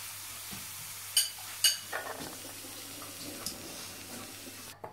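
Hot oil sizzling steadily as corn kernels deep-fry in a wok. There are two sharp, ringing clinks of kitchenware about a second in, then lighter clatter and stirring. The sizzling cuts off suddenly near the end.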